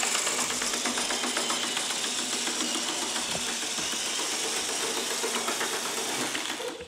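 HO scale model locomotive running, a steady mechanical hum with a fast run of small clicks.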